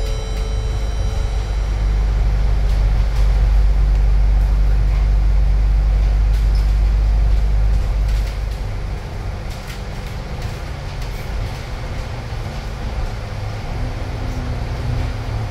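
Alexander Dennis Enviro500 double-decker bus on the move, heard from its upper deck: a steady low engine and road rumble with light interior rattles. The rumble eases off about eight seconds in.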